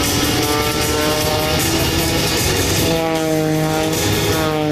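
Aerobatic propeller planes' piston engines at high power, the engine note falling in pitch as the aircraft pass by, most clearly from about three seconds in.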